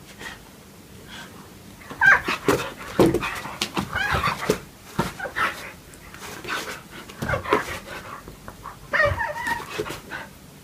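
Siberian husky vocalizing in a string of short whines that bend up and down in pitch, starting about two seconds in and going on in bursts with brief pauses, with another burst near the end.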